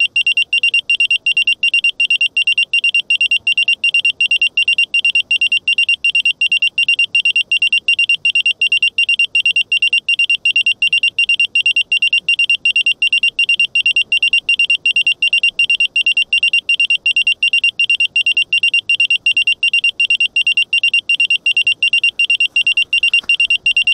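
A miniquad's lost-model buzzer beeping steadily, about four high beeps a second. This is the alarm a downed FPV quadcopter sounds after a crash so that it can be found.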